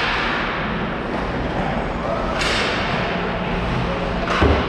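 Ice hockey play: skates scraping the ice in hissing sweeps, over a steady low arena hum, with a loud bang against the boards near the end.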